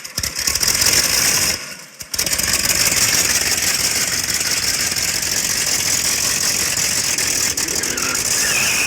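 A loud engine running, dropping out briefly about a second and a half in, then picking up again and running steadily.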